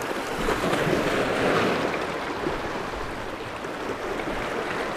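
Small sea waves washing and breaking over shoreline boulders, with wind buffeting the microphone.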